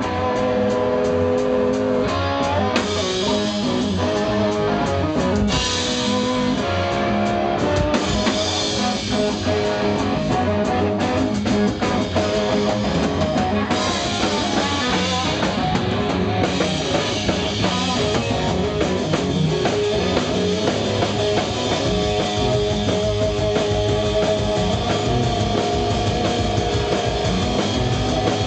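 A rock band playing live: electric guitars and bass holding sustained notes over a drum kit, loud and unbroken.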